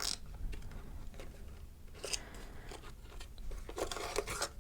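Quiet, scattered handling of a small cardboard slime box and its paper insert, with a few light scratchy rustles and taps about two seconds in and again near the end.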